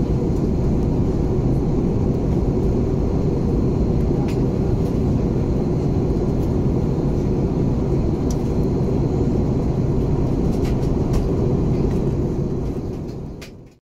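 Steady cabin noise inside an Airbus A321neo in flight, the low rush of airflow and Pratt & Whitney geared turbofan engines, fading out near the end.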